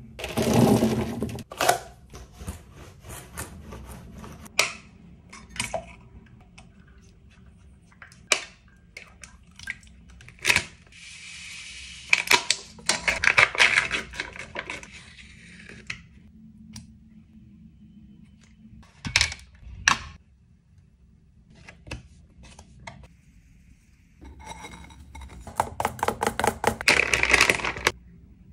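Close-miked baking prep sounds: scattered clicks and taps of utensils against a stainless steel mixing bowl, a stretch of spoon scraping inside a cup, and near the end rapid fork strokes clinking against a ceramic bowl of blueberries.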